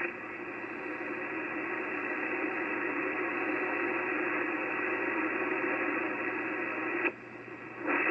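Ham radio transceiver's speaker giving steady static and hiss while the tuning dial is turned across the 80-metre band, with no station heard. The hiss drops away for a moment about seven seconds in, then returns.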